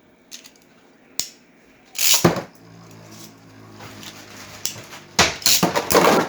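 Beyblade spinning tops launched into a stadium with a quick zip about two seconds in, then spinning with a steady hum, then clashing and clattering against each other in rapid hits near the end.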